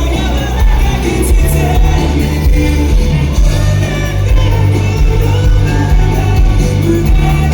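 Live rock band with singing, heard loud and bass-heavy through a phone recording from the audience, over a steady beat; the crowd can be heard shouting along.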